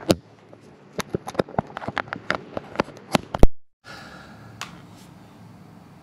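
Hands handling a wireless microphone kit and its cable: a run of small clicks and taps, the loudest about three and a half seconds in. The sound then cuts out for a moment and only a faint steady hum remains, with a single click.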